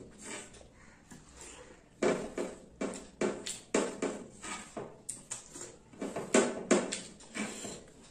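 Wet eating sounds close to the microphone: rice and dal squished together by hand on a plate and chewed with lip smacks. The first two seconds are quieter, then a quick, irregular run of short smacks follows, two or three a second.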